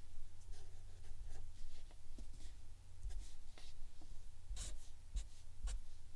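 Sharpie felt-tip marker drawing short strokes on paper, a soft scratchy rubbing. A few sharper strokes or taps of the tip come about four and a half to six seconds in.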